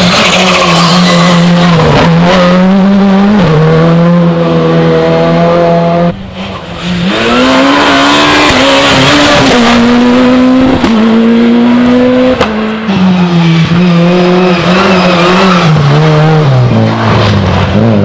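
Rally cars driven flat out through tight asphalt hairpins. The engine note rises and falls in steps through the gears, with tyres squealing, and there is a brief drop about six seconds in before the next car comes through.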